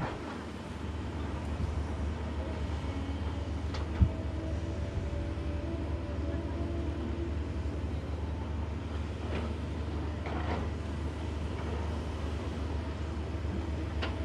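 Excavator diesel engine running steadily, with one sharp knock about four seconds in.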